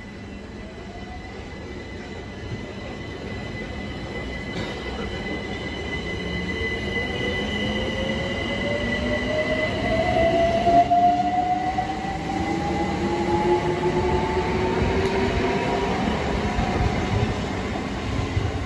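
A Class 376 Electrostar electric train pulling out and accelerating. The traction motor whine rises steadily in pitch, over a steady high-pitched tone and wheel-on-rail rumble, and it grows louder as the carriages pass.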